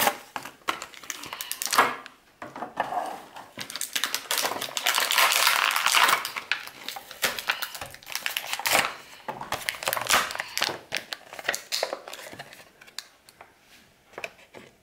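Clear plastic toy packaging and its cardboard backing crinkling, crackling and clicking as it is pulled open by hand, with a longer stretch of dense crinkling about four to seven seconds in.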